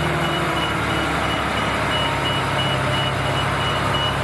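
Mercedes-Benz three-axle dump truck's diesel engine running steadily as it crawls over rough ground, with a reversing alarm beeping rapidly at one high pitch, about three beeps a second.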